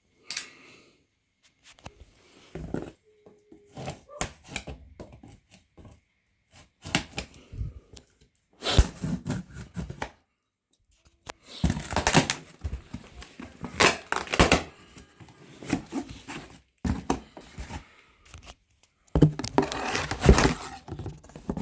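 Packaging being torn open and handled: irregular spells of tearing and crinkling with a few thunks, separated by short quiet gaps.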